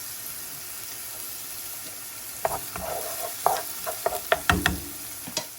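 Chopped onion and garlic sizzling in hot olive oil in a frying pan. From about halfway through, a utensil clicks and scrapes against the pan as they are stirred.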